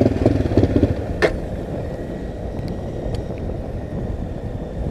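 Honda CRF250L's single-cylinder engine cutting out within the first second, leaving a steady rushing noise, with one sharp click about a second in. The engine is stalling, which the rider takes for running out of fuel.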